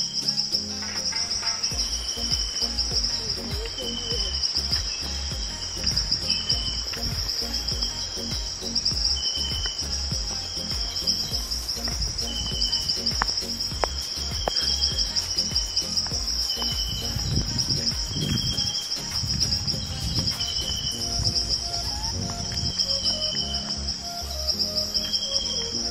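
Steady, high-pitched chorus of tropical insects, pulsing without a break. A shorter call repeats about once every second or so over it, with a low rumble underneath.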